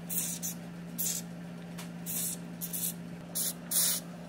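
Aerosol spray lubricant fired through an extension straw onto a snowblower's control-linkage pivot points, in about six short hissing bursts of a fraction of a second each.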